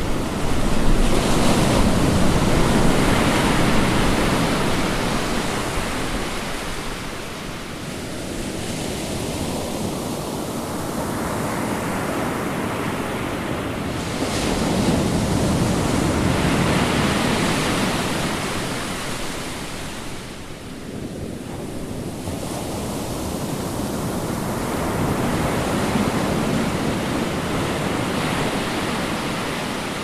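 Ocean waves breaking and washing in: a steady rush of surf that swells and falls back three times, with a sudden crash about a second in and again about halfway through.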